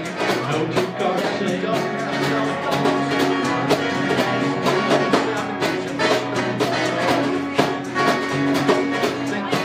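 Live acoustic guitar strumming with djembe hand-drum strokes keeping a steady beat, in a folk-country train song.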